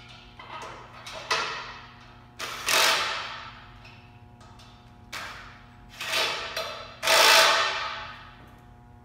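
Cordless drill/driver run in short trigger bursts while driving fasteners into an aluminium extrusion frame, about six bursts, each starting suddenly and fading out over about a second; the longest and loudest come just before three seconds and near the end.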